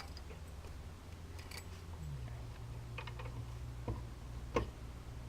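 Scattered light clicks and knocks of hand work on a car's rear wheel hub, about half a dozen, with a low steady hum underneath.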